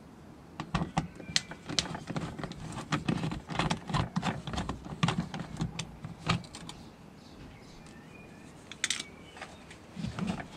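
Quick, irregular light clicks and rattles of a long screwdriver bit holder turning a screw out of a car's plastic engine undertray and the loose screw being caught in the fingers. The clicking stops about six seconds in, and a few knocks follow near the end as the plastic undertray is handled.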